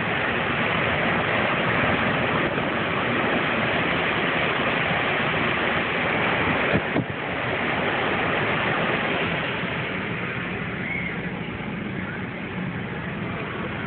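Steady rush of tropical-storm wind and heavy surf breaking over a rock jetty, heard from a parked car, easing slightly partway through. A brief knock about seven seconds in.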